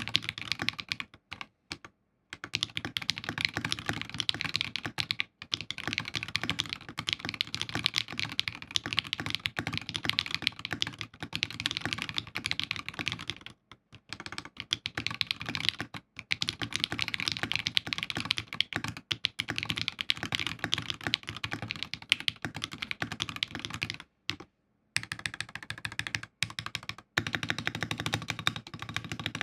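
Fast, continuous typing on a Fusion60 60% mechanical keyboard with FFFF switches lubed with Krytox 205G0 and filmed, under Infinikey Aether keycaps, on a DZ60 PCB with foam. The keystrokes run as a dense stream of clicks, broken by a few brief pauses: about 2 seconds in, around the middle, and a longer one near 24 seconds.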